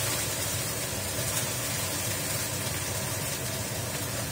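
Kitchen range hood fan running with a steady whooshing hum, over a pan of carrots cooking in a little water on the gas stove.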